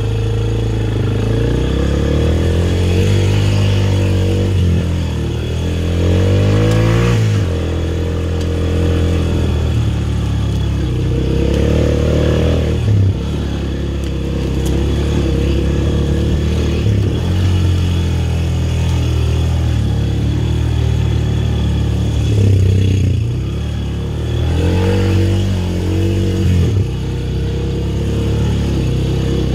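Four-wheeler (ATV) engine running hard on a dirt trail, its pitch rising and falling again and again as the throttle is opened and eased off.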